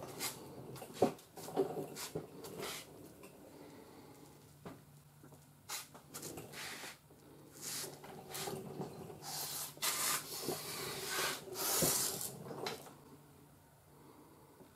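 Scattered rustling, scraping and clicks with several bursts of hiss, strongest between about nine and thirteen seconds in, over a faint steady hum; it dies away near the end.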